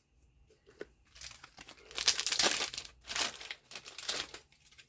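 Foil booster-pack wrapper crinkling and tearing as it is handled and opened, in several bursts, loudest about two seconds in.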